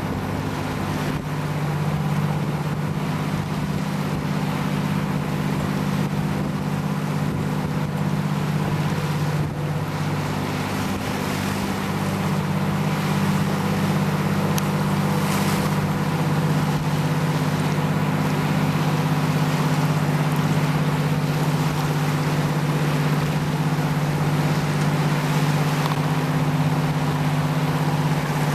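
Boat motor running at a steady speed, a low even hum, with a rush of wind and water over it.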